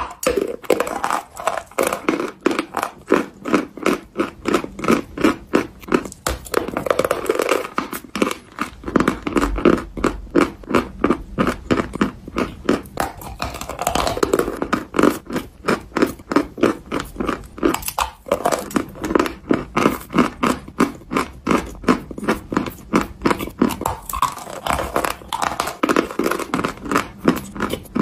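Crunching and chewing of a block of white eating chalk coated with a black paste, bitten off and chewed in quick crunches, several a second, without a break.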